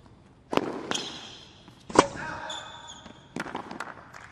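Tennis rally on a hard court: a few sharp racket strikes on the ball, the loudest about two seconds in, with shoes squeaking on the court between shots.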